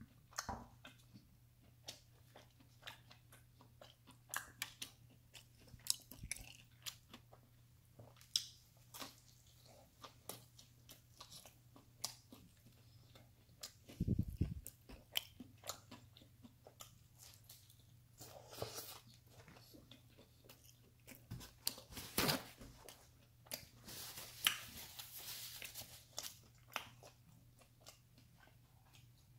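Close-miked chewing and biting of pepperoni pizza: crisp crust crunching and wet mouth clicks coming in irregular runs. There is one dull thump about halfway through, and a hissing stretch of about two seconds near the end.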